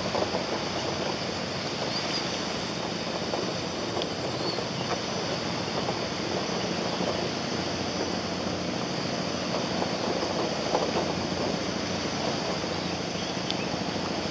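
Steady rushing outdoor background noise with a few faint scattered clicks.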